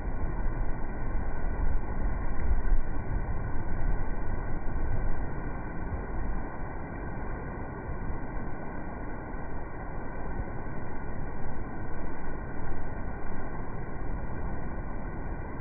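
Steady rushing noise of a coastal ship's churning wake, heavy in the low end and swelling and easing in loudness.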